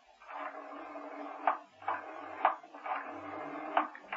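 Telephone being dialled, a run of sharp clicks about every half second over a steady background sound.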